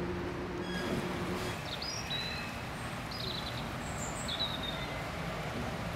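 Steady ambient noise with a low hum that stops about a second and a half in, and several short bird chirps in the middle.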